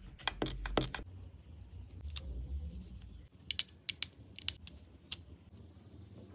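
Sharp plastic clicks and snaps, about five in the first second as the flip-top cap of a pump dispenser bottle is snapped open and handled, then a quick run of clicks from plastic nail-soak clips clamped over cotton on the fingernails.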